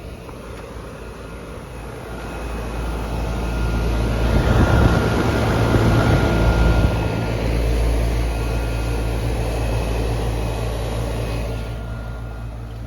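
Outdoor heat pump condensing unit running: a rushing fan with a low compressor hum and a thin steady whine. It swells to its loudest a few seconds in and then fades away.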